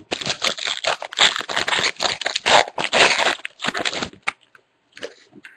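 Foil trading-card pack wrapper being torn open and crinkled by hand: a dense run of crackling for about four seconds, then a few faint rustles.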